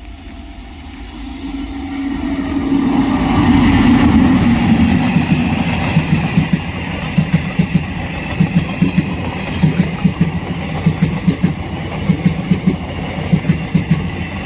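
A WAG-9HC electric locomotive passes at speed, its drone building to a peak about four seconds in and dropping in pitch as it goes by. Its coaches follow, their wheels clattering in a steady clickety-clack over the rail joints.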